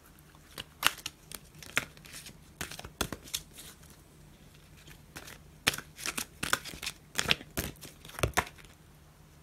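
Oracle cards being handled: irregular snaps and rustles as the deck is shuffled and cards are flicked and laid down.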